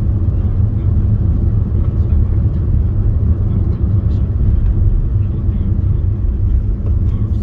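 Steady low rumble of a car driving on the road: road and wind noise.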